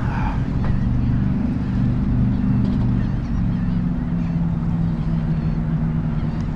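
An engine idling, a steady low hum whose pitch shifts slightly about three seconds in.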